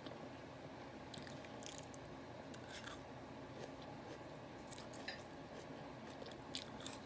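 Faint eating sounds: a person chewing, with scattered small clicks and ticks.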